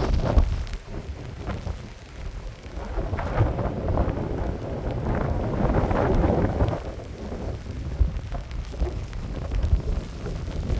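Storm wind buffeting the microphone in gusts, with heavy rain falling. The gusts swell to their loudest in the middle and ease off toward the end.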